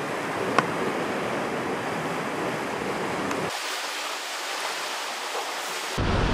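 Steady sea and wind noise with a single light click about half a second in. The deep part of the sound drops away for a couple of seconds, then near the end louder surf breaks against rocks with wind buffeting the microphone.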